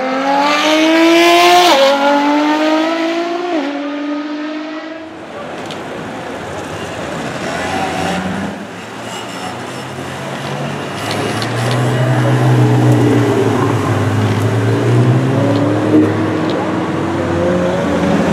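A high-revving car engine accelerates through the gears, its pitch climbing and dropping sharply at two upshifts, then cuts off about five seconds in. Street traffic noise follows, and later a Ferrari 488 GTB's twin-turbocharged V8 rumbles low and pulls away with its pitch rising.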